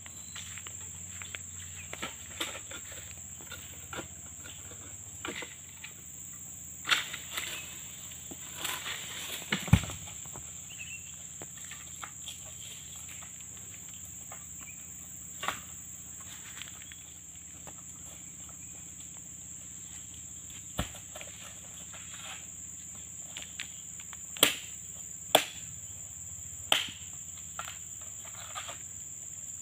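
Steady high drone of insects, with scattered sharp knocks and thuds from harvesting oil palm fruit with a long-poled cutting blade. The heaviest thumps come about ten seconds in and a little past twenty seconds, and a quick run of sharp knocks comes near the end.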